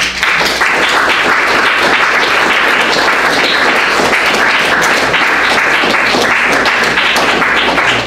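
Audience applauding: dense clapping that starts suddenly and dies away near the end.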